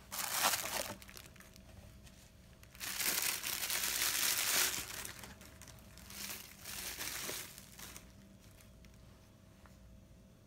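Plastic bubble-wrap packaging crinkling as a camera battery grip is unwrapped. It comes in bursts: a short one at the start, a longer one in the middle, then two shorter ones before it stops.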